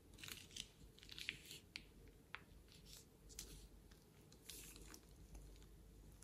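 Faint crinkling and crackling of a plastic piping bag squeezed by hand, in short scattered bursts with a few sharper clicks, most of them in the first two seconds and again about halfway through and after four seconds.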